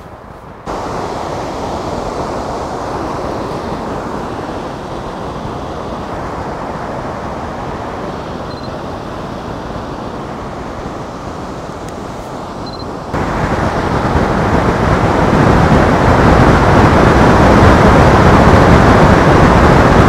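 A waterfall and river rushing: a steady, dense roar of falling water. It gets abruptly louder about two-thirds of the way through, as the falls are heard from closer.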